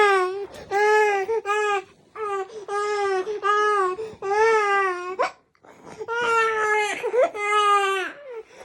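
Baby crying hard in a string of about nine short wails, each under a second, with a brief gap about five seconds in. She is bringing up chest mucus as she cries.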